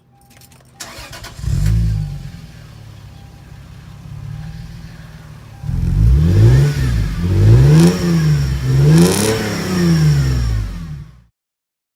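Lexus GS300's 3.0-litre straight-six, breathing through Flowmaster headers and a Magnaflow catalytic-converter mid-pipe, starting up with a quick blip and settling to idle. A few seconds later it is revved several times in quick succession, each rev rising and falling, before the sound cuts off suddenly.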